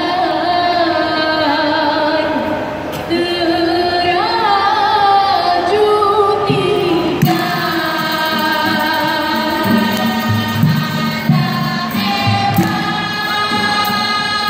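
Live music: several voices singing held notes together in harmony, with a lower bass part coming in about halfway through.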